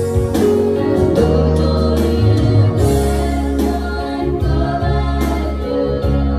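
Gospel worship song: singing over instrumental backing with a steady bass line and a beat.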